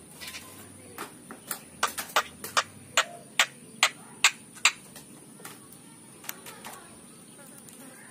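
A run of about a dozen sharp clicks or taps, two or three a second, getting louder and then stopping a little after four seconds of clicking, with a few fainter clicks later.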